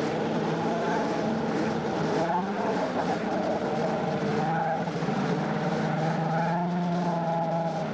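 Racing snowmobiles' two-stroke engines running on a grass drag strip, their pitch rising and falling as the sleds rev.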